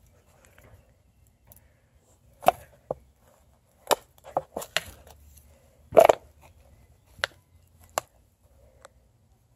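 Sneaker steps on dry dirt, twigs and a discarded bottle: a series of short, sharp snaps and crunches, the loudest about two and a half and six seconds in.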